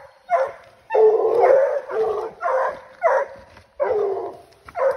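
Coonhounds barking treed at a raccoon up a tree: a run of loud barks, about one and a half a second, some drawn out into longer bawls.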